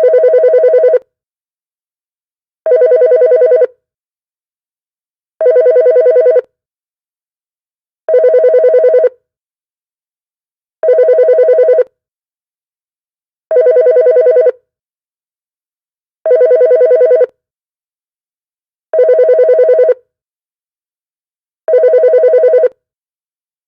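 Telephone ringing with a fast trilling ring: nine rings of about a second each, one roughly every 2.7 seconds.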